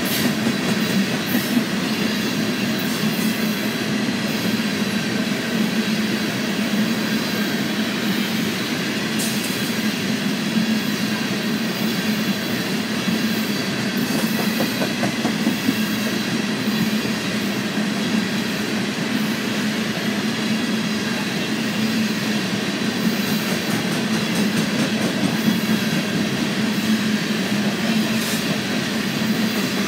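Coal cars of a freight train rolling past at steady speed: a continuous rumble of steel wheels on the rails, with scattered clicks of wheels over the track.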